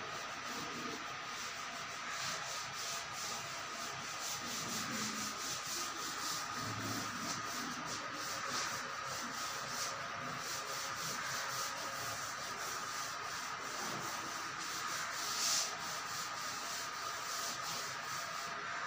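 A board duster rubbed rapidly back and forth across a chalkboard, erasing chalk writing in quick repeated scrubbing strokes.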